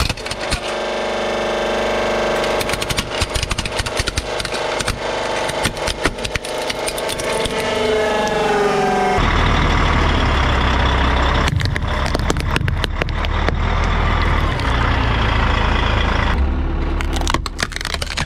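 A hydraulic press running with a steady whine while a plastic toy crackles and cracks under the ram, its tone wavering in pitch for a while before an abrupt cut. Then a car engine rumbles as its tyre rolls over a plastic toy, with scattered crackling.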